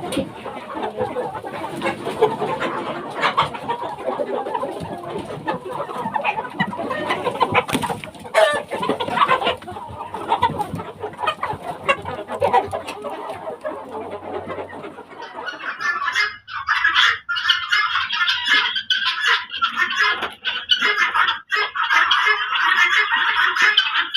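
A large flock of desi (village-breed) chickens clucking and calling continuously, with occasional crowing. About 16 seconds in, the sound changes abruptly to a brighter, higher-pitched din.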